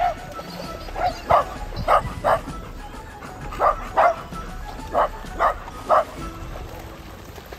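A dog barking repeatedly: about ten short, sharp barks, mostly in quick pairs, with music playing underneath.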